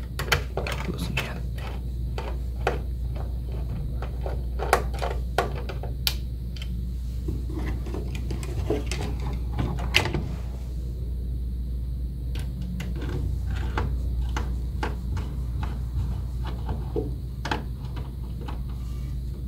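Irregular small metal clicks and scrapes of a hex screwdriver turning and loosening screws on a metal optic plate, busiest in the first several seconds and again near the end, over a steady low hum.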